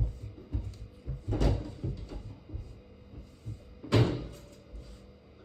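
Knocks and bumps of objects being handled, with two louder sharp knocks about a second and a half and four seconds in.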